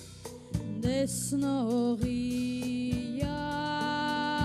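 Live rock band: a woman singing long held notes, with one short downward slide, over electric guitar, bass and a drum kit keeping a steady beat. The band drops briefly quieter at the very start, and the voice comes in about a second in.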